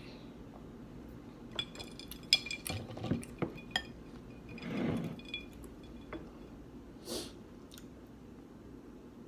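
Metal cutlery clinking and scraping against a dish, a quick run of ringing clinks between about one and a half and four seconds in. A soft rustling swell and one short burst of noise follow.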